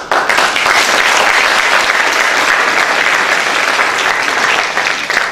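Audience applauding, a dense steady clapping that starts at once and begins to thin near the end.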